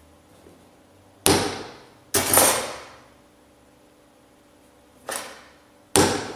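Hammer striking a centre punch on metal plate four times, in two pairs: sharp metallic taps, each ringing briefly. The punch marks centre points so the dividers won't slide when scribing the arcs.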